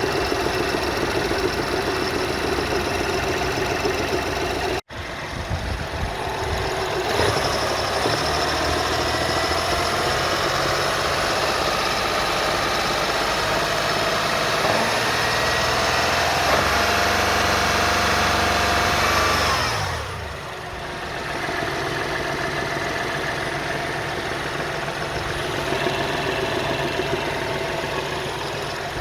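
BMW B38 three-cylinder engine running with a rhythmic knocking from the back of the engine that is not metallic, a noise loudest when the engine is cold. It gets louder for a stretch in the middle with a slowly rising tone, then drops back about twenty seconds in; there is a brief break about five seconds in.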